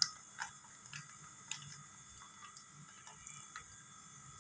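Faint, scattered clicks and crinkles of a plastic sachet being squeezed as soft ghee is emptied from it into a bowl, over a low steady hiss.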